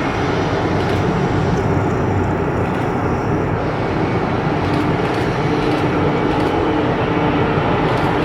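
McDonnell Douglas MD-83 jetliner's rear-mounted Pratt & Whitney JT8D turbofans running, a steady, loud jet engine noise.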